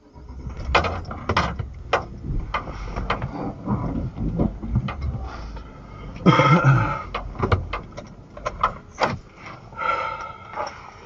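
Irregular knocks and clicks inside a car cabin over a low engine rumble, with a louder, longer burst about six seconds in.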